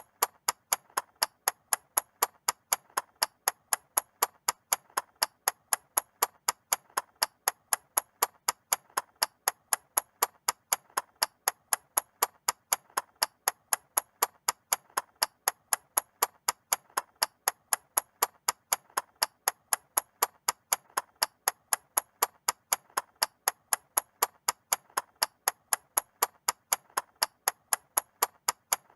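Mechanical clock ticking: sharp, crisp ticks at an even, steady rate, several a second.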